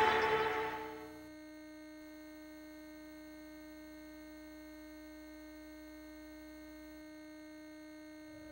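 The bumper's music fades out over about the first second. It leaves only a faint, steady hum with a low tone from the VHS tape playback.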